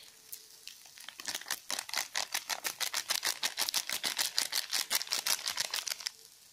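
Plastic-foil spice packet being shaken and tapped to pour powder into a pan: a rapid, even run of crisp crinkling clicks, about six a second, starting about a second in and stopping shortly before the end.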